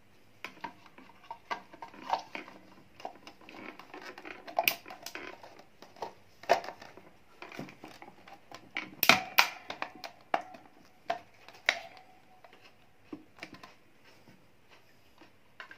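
Plastic rear motor housing of a stand fan being handled and fitted back over the motor: irregular clicks and knocks of plastic on plastic, the loudest a close pair about nine seconds in.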